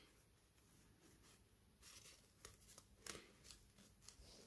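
Near silence, with a few faint rustles and light taps of a paper pocket made from a book page and a card being handled, from about two seconds in.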